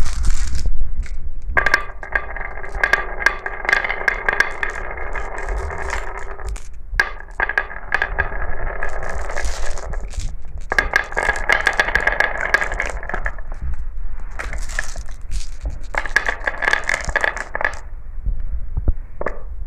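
Glass marbles rolling along a marble-run track in four runs of a few seconds each, a steady ringing rattle with clicks and clinks between runs as marbles drop and knock together.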